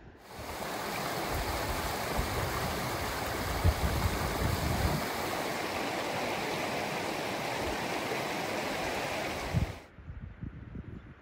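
Shallow mountain stream rushing over a rocky riffle, a steady loud flow of water with a few low thumps in it. It cuts off suddenly near the end.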